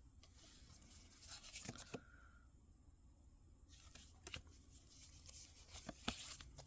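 Near silence with a few faint taps and light rustles of trading cards being handled.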